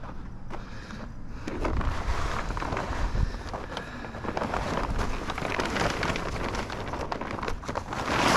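Heavy polyethylene tarp being unfolded and shaken out by hand, its plastic crackling and rustling in irregular bursts, with wind rumbling on the microphone.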